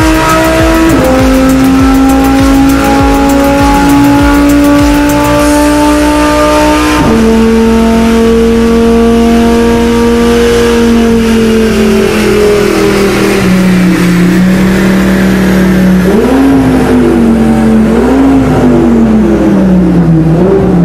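Audi R8 engine running with a strong, steady note that jumps in pitch abruptly about a second in and again about seven seconds in, then sinks slowly and wavers up and down as it is revved near the end.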